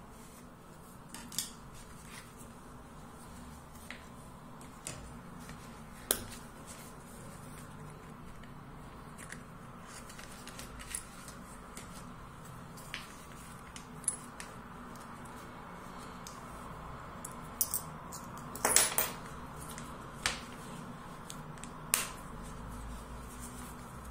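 Hands handling a calfskin leather wallet: soft rustling with scattered small clicks and taps as it is opened, a card is pulled from a slot and it is folded shut. A brief cluster of louder clicks comes about three-quarters of the way through, over a faint steady hum.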